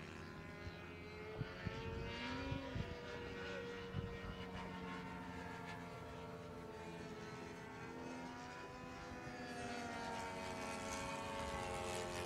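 Several racing RC model airplanes' engines droning together, each pitch sliding up and down as the planes circle the course, growing louder near the end as they come closer. A few short knocks within the first four seconds.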